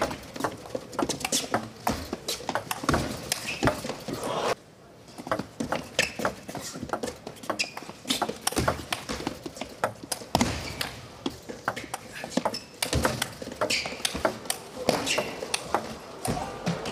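Table tennis rallies: the celluloid ball clicking off the players' bats and the table in quick, irregular strikes, with a short pause about four and a half seconds in.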